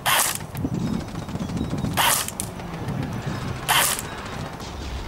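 Cyma CM.040 AK-74M airsoft electric rifle firing three single shots about two seconds apart. The BBs strike a metal-mesh airsoft mask, and a faint tick follows the second shot.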